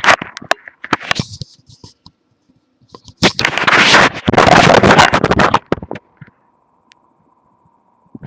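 Handling noise of a webcam microphone pressed against a moving foot: scattered clicks and knocks, then a loud scraping rustle lasting about two seconds. The noise is the webcam itself shifting and rubbing, which covers any sound from inside the body.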